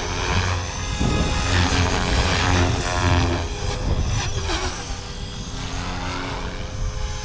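Blade Fusion 360 electric RC helicopter in flight: the rotor and motor whine with the pitch sweeping up and down through the middle as it is thrown through aerobatic manoeuvres.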